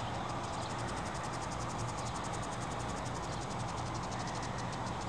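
Insects chirping outdoors, a fast and even high-pitched pulsing, over a steady low background rush.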